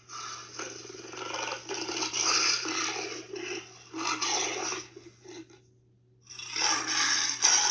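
Recorded lion sound effect: a series of lions growling and roaring in bursts, with a pause of about a second near the end before it starts again.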